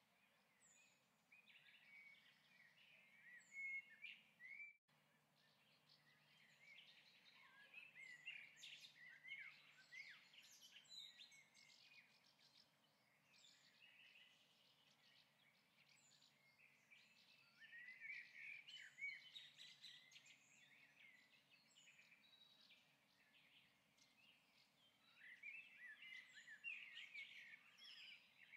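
Near silence, with faint bird chirping: clusters of quick, rising and falling chirps every few seconds.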